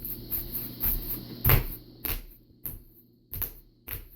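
Bubble wrap bubbles popping one after another at an uneven pace, about two sharp pops a second, the loudest about a second and a half in.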